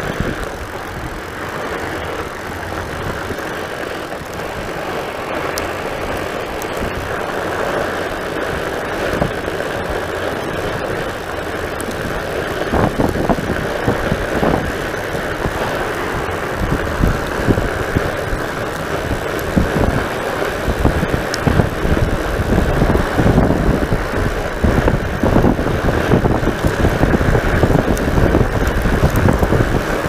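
Fat bike rolling over a packed-snow trail, heard from a camera mounted on the bike: a steady rush of the wide knobby tyre on snow with wind buffeting the microphone. Low rumbling and knocks from the bike over the bumpy snow grow stronger in the second half.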